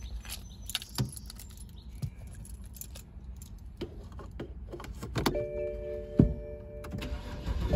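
Clicks, knocks and key jangling inside a 2011 BMW 328i xDrive as the driver settles in. Then, about five seconds in, the ignition comes on with a steady faint whine of several tones, and a sharp click follows about a second later as the start button is pressed; the engine has not yet cranked.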